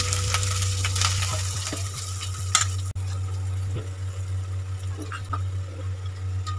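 Rice sizzling in hot ghee in a steel pot, with a few sharp clicks of a spoon against the pot, over a steady low hum. The sound breaks off for a moment about three seconds in.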